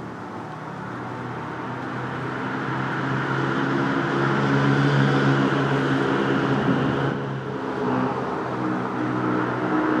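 A motor engine hums steadily, growing louder to a peak about halfway through, easing briefly, then running on.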